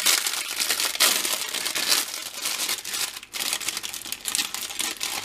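Thin clear plastic packaging crinkling and tearing as it is pulled open by hand to take out a frozen breaded cutlet, with a brief lull about three seconds in.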